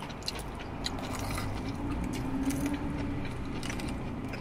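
Close-up eating sounds: chewing and short wet mouth smacks as fried chicken wings and lo mein noodles are eaten, over a steady low hum.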